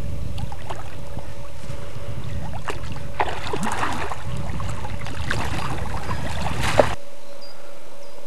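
Wels catfish swirling and splashing at the river surface, a few splashes about three to four seconds in and a sharper one near the end, over a steady low rumble of wind on the microphone. The rumble cuts off abruptly to a quieter background about seven seconds in.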